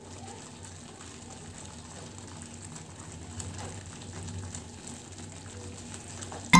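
Paneer butter masala gravy simmering in a frying pan on a gas burner: a steady low bubbling hiss with a few faint pops.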